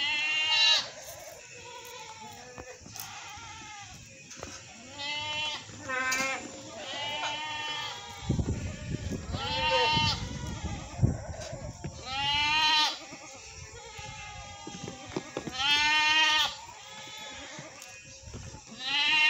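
Goats bleating, about seven separate wavering calls spaced a second to a few seconds apart, each under a second long.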